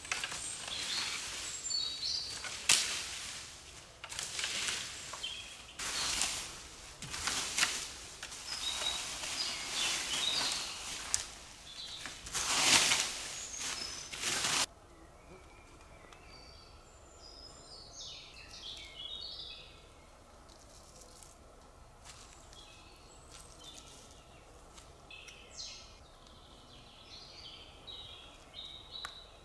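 Dry leaf litter being swept and scraped aside with a long branch, in repeated rustling strokes. About halfway through this cuts off suddenly, leaving small birds chirping.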